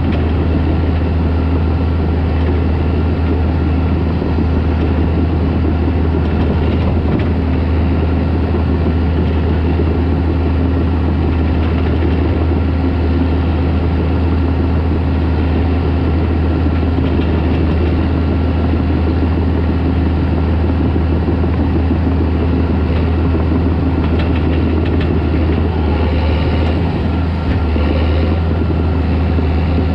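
Caterpillar D4 crawler tractor's diesel engine running steadily, a loud constant drone with a deep low hum.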